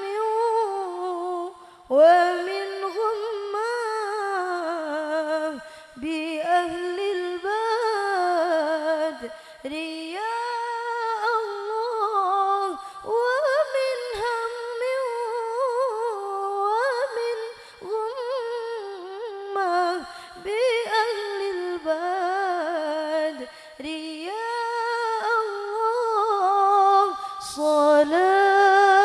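A woman's solo voice singing an unaccompanied, melismatic Arabic devotional melody (shalawat), with long wavering, ornamented notes broken by short breaths every few seconds.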